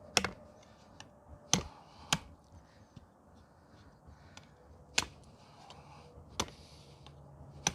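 Hand-forged knife blades chopping into wood: about six sharp, irregularly spaced chops with pauses between them.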